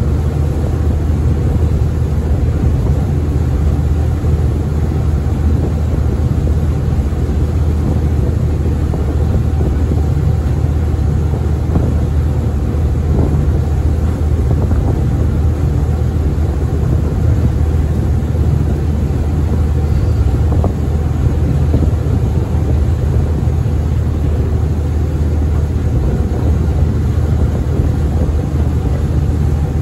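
The small ferry Tsui Wah 12's engine running steadily under way: a loud, even low drone with a rush of noise over it.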